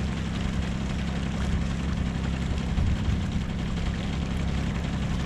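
40 hp outboard motor running steadily at trolling speed, a low even drone.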